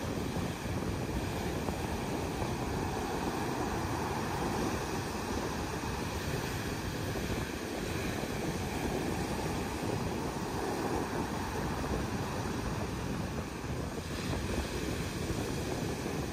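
Atlantic surf: waves breaking and foam washing up a sand beach in a steady, unbroken rush that swells and eases gently. The sea is rough ahead of a storm.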